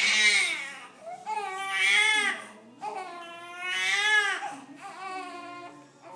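Newborn baby crying in about four short wails with rising and falling pitch, the last one weaker, during a held contact on his atlas vertebra, which the chiropractor takes as a little soreness.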